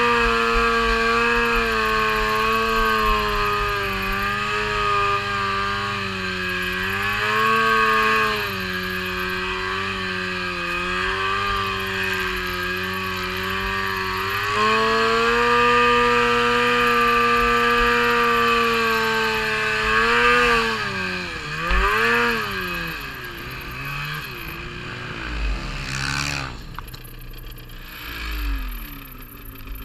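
The 800cc engine of a custom-built snow bike running under load through deep snow, its pitch rising and falling as the throttle is worked. Its note wavers and drops about two-thirds of the way in, and it runs quieter near the end.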